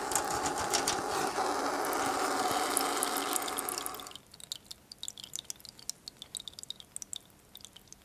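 Radiator bleed valve opened with a bleed key, hissing steadily as the pressure escapes from the isolated radiator. The hiss stops abruptly about four seconds in, leaving a thin stream of water trickling and dripping into a plastic tub.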